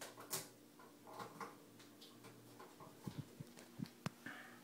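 Faint handling noise as hands work the heater's wiring: scattered light clicks and rustles over a faint steady low hum. Later come a few low bumps and one sharp click about four seconds in.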